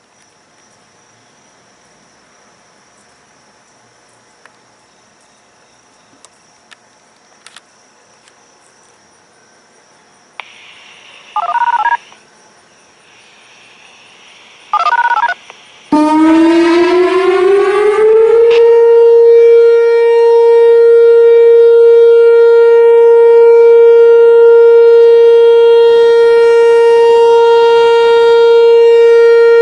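Two short bursts of two-tone siren activation signalling, then a Whelen WPS-4004 electronic warning siren starts: its tone rises in pitch for about two seconds and then holds a loud, steady Alert tone. The first third is faint outdoor background with a few ticks.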